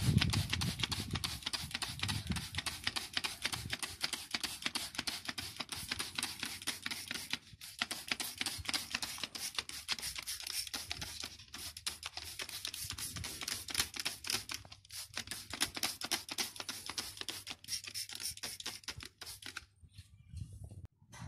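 Rim cleaner sprayed in a fine jet onto a wet alloy wheel, making a fast, dense crackle with a few short pauses. It fades near the end.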